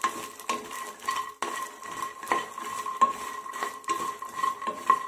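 Spatula stirring makhana (fox nuts) and curry leaves around a frying pan with a little oil: repeated irregular scrapes and clicks against the pan as the puffed seeds tumble.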